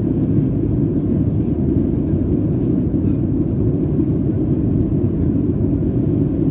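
Steady low rumble of a Boeing 737-300 in flight, its CFM56-3 turbofan engines and the airflow heard from inside the passenger cabin, during the climb after takeoff.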